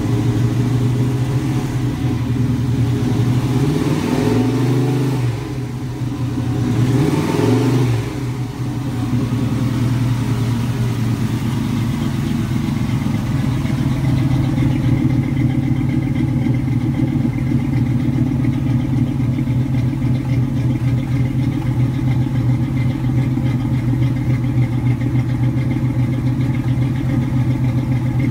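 Chevy 4x4 van engine with QFI fuel injection running after a cold start, heard at the exhaust tailpipe. The throttle is blipped twice in the first several seconds, each rev rising and falling back, then the engine settles to a steady idle.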